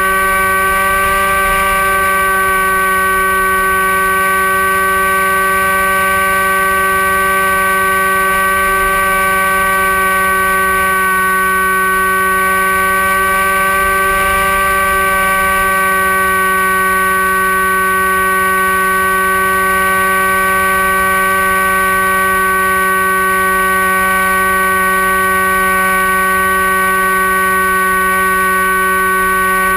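Dynam Hawk Sky's electric motor and propeller whining steadily in flight, picked up by the onboard camera, with a low rush of wind underneath.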